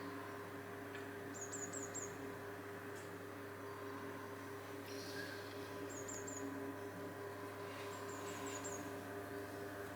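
Small bird calling in short runs of high, thin chirps, three or four quick notes at a time, about three times, over a steady low hum.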